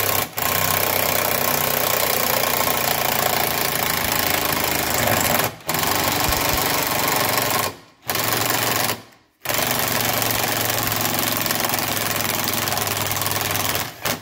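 DeWalt 18V cordless impact driver hammering at a stubborn, rusty 10 mm underbody bolt in long runs with four brief pauses. The bolt is slow to come loose, and the driver's battery is running low.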